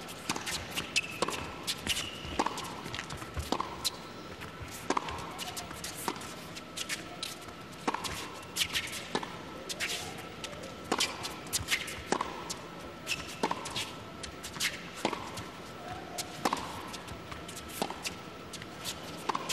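Tennis rally on an indoor hard court: sharp racket strikes and ball bounces about once a second, over a faint steady high tone.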